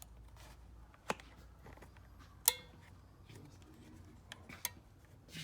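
A few isolated sharp clicks and clacks of hard plastic fairing parts and tools being handled while the inner fairing vents are reinstalled. The loudest click comes about two and a half seconds in and rings briefly.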